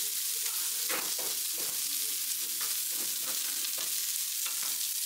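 Cubes of meat sizzling on a hot tabletop grill plate: a steady frying hiss, with a few short clicks along the way.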